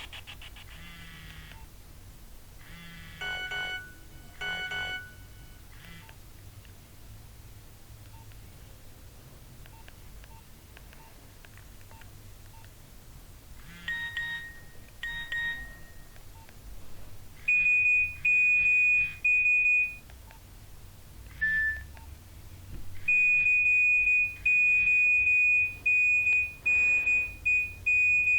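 Nokia 1112 mobile phone playing its built-in ringtones and alert tones through its small speaker. There are short chimes of a few notes a few seconds in and again about halfway, then, from about two-thirds through, loud fast beeping on one high pitch in long runs.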